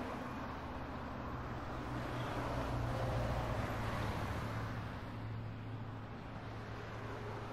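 Motor vehicle running, a low steady engine hum over road noise that swells slightly about three seconds in and eases again.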